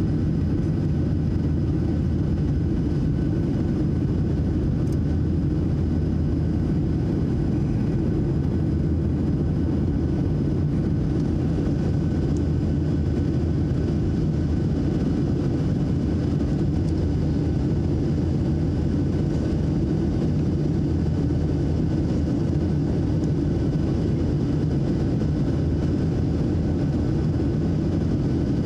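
Steady engine and airflow noise inside the cabin of a Boeing 737-700 with its CFM56-7B turbofans running, a deep even rumble with faint steady whine tones above it.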